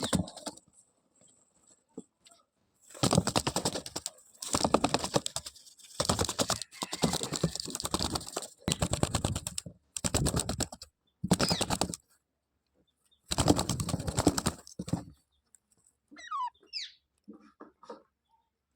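A parrot giving a run of harsh, rattling calls in bursts of about a second each, then a few short, quieter chirps near the end.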